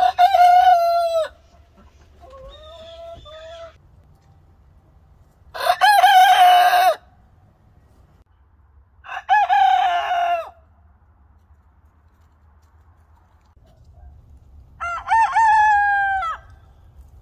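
Ameraucana roosters crowing: four loud crows, each about a second and a half long and spaced several seconds apart, with a fainter, shorter call between the first two.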